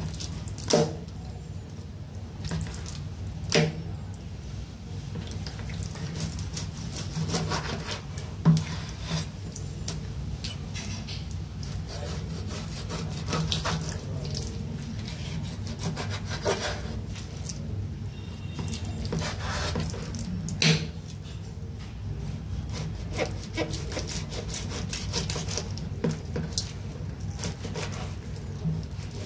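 Large kitchen knife slicing through raw meat on a wooden cutting board: repeated sawing, scraping strokes, with a few sharp knocks of the blade or hand against the board.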